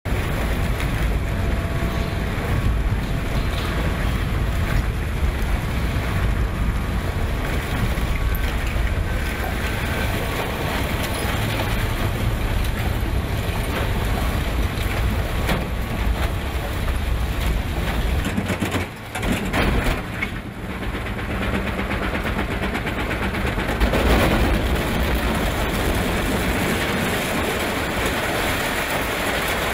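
Industrial waste shredder running steadily with a heavy, continuous grinding rumble as its cutter shafts chew through mixed plastic waste and a steel-caged IBC tote. The noise drops briefly a little past halfway, and there is a short louder burst about two-thirds in.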